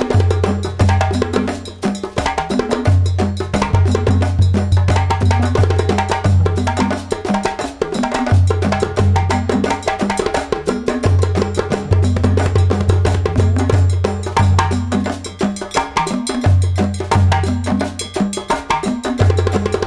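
Background music with a steady beat, led by percussion with a cowbell or wood-block sound over a repeating bass line.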